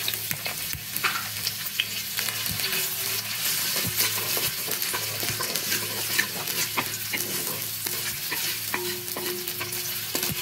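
Chopped onions sizzling in hot ghee in a clay pot, with a steady frying hiss. Scattered scrapes and taps come from a wooden spatula stirring them against the pot.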